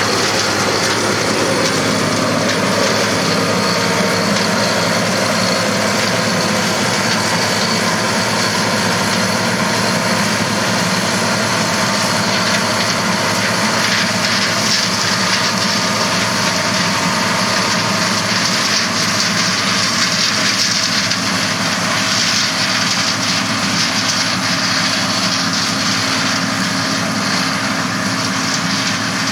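John Deere 9650 STS combine running steadily as it harvests corn, engine and threshing machinery at a constant pitch.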